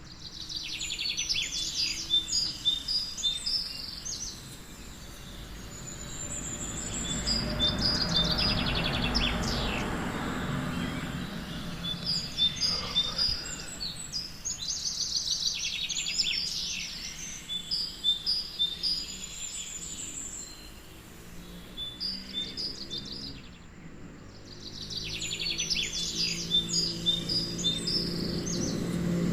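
Birds chirping in repeated bouts of rapid high trills and twitters, with a swell of steady background noise between the bouts.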